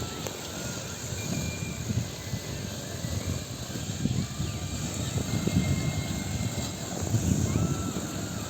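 A lawn mower's engine running, a low uneven rumble that swells and eases every second or so.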